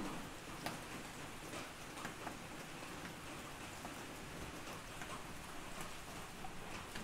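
Rain falling steadily, with irregular sharp ticks of drops landing close by.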